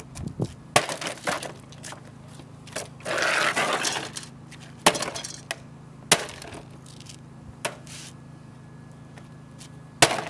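A 2-pound hammer striking a cheap plastic coffee machine and breaking it apart. About five sharp blows land at irregular intervals, with a longer crunching, breaking noise for about a second a few seconds in.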